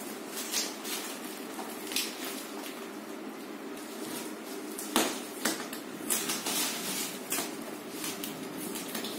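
Plastic stretch wrap on a roll-packed mattress crinkling and crackling as hands push and roll it, in short scattered rustles with one louder crack about five seconds in. A steady low hum runs underneath.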